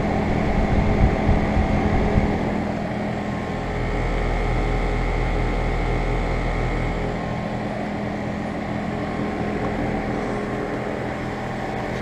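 2016 Carrier Comfort Series heat pump outdoor unit running in heat mode with its coil frozen: steady fan rush and compressor hum with a constant low tone. Some low rumbling in the first few seconds.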